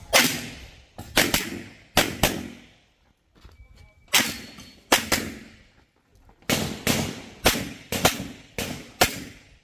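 A handgun fired in a rapid string of about a dozen shots, mostly in quick pairs. There is a pause of about two seconds after the first few shots, then the firing resumes. Each shot rings briefly off the surrounding concrete walls.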